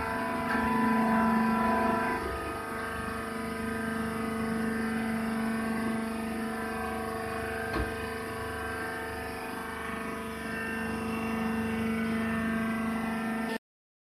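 Hydraulic coconut-fibre baler's power unit running with a steady, even hum, with one sharp click about eight seconds in. The sound cuts off suddenly near the end.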